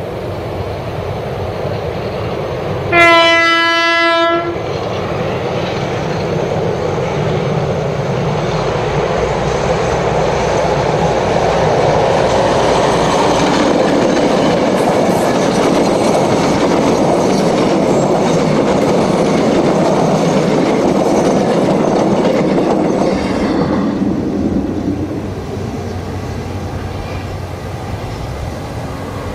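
A diesel locomotive's horn gives one steady blast about three seconds in. Then a train of two diesel-electric locomotives hauling passenger carriages passes: the noise of engines and wheels on the rails builds, holds, and fades away near the end.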